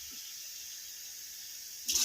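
Faint steady hiss of running water, which suddenly runs loud again just before the end.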